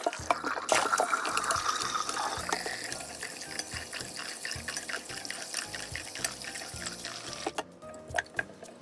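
Kitchen tap running into a bowl of water in a stainless steel sink while sliced lotus root is rinsed by hand. The flow is loudest at first and stops near the end, leaving scattered drips and clinks.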